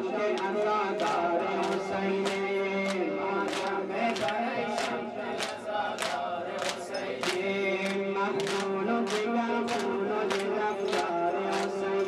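A group of male voices chanting a Muharram mourning lament (noha) together, held notes over a steady beat of sharp slaps about every 0.6 seconds.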